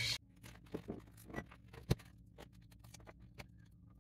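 Scattered light clicks and taps of hand tools and a multimeter's test probes being handled against an opened pack of 18650 lithium cells, at uneven intervals, with the sharpest tap about two seconds in.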